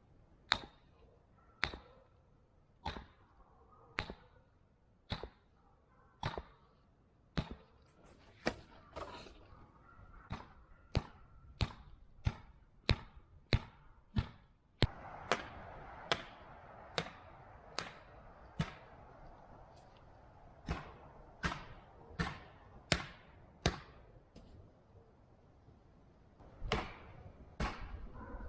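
Repeated hammer blows, sharp knocks about one a second in a steady working rhythm, with a short pause near the end.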